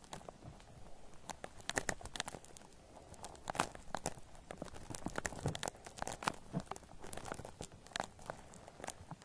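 Shaving cream foam being squished and worked right up close to binaural microphones, giving dense, irregular crackling clicks with soft low squelches underneath.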